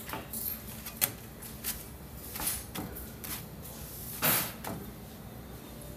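Hands turning and patting folded corn-masa quesadillas on a nonstick comal griddle: scattered soft taps and scrapes, with a sharp click about a second in and a louder brushing scrape a little after four seconds.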